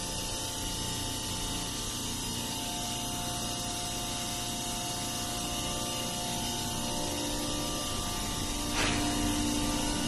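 Steady hum of machinery running in a ship's pump room, with several constant tones over a wide noise. A short knock about nine seconds in, after which the hum is a little louder.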